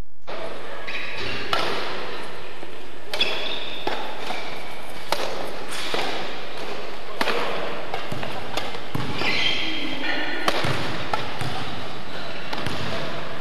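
Badminton rackets striking shuttlecocks in rallies, sharp hits every second or so, echoing in a large sports hall. Short high squeaks and a steady background din sit between the hits.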